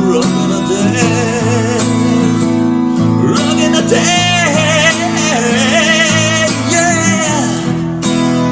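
Steel-string acoustic guitar strummed, its chords voiced with the top two strings left ringing open, while a man sings long, wavering notes over it without clear words.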